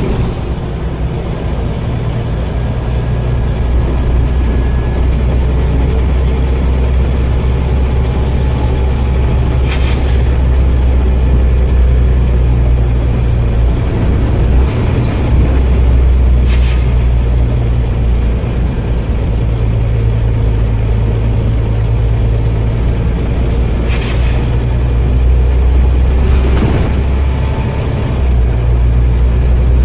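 Scania OmniCity bus running with a steady engine drone, broken four times, several seconds apart, by a short hiss of escaping compressed air: the loud "sneezing" of its worn-out air tanks.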